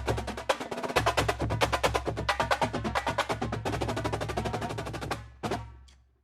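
Fast drumming, many quick stick strikes a second over a steady low bass. It ends with a final hit about five and a half seconds in that dies away.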